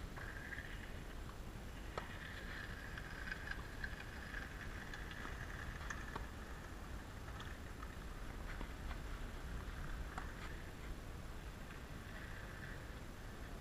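Tennis rally on a clay court: a few faint, sharp racket-on-ball strikes, the clearest about two seconds in and another near ten seconds, over a quiet background with a high chirping sound through the first half.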